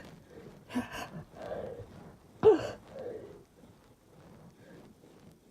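A person's breathy gasps and sighs while building up to a sneeze that has not yet come, the loudest a short voiced catch of breath about two and a half seconds in, falling in pitch; after it the breathing fades to near quiet.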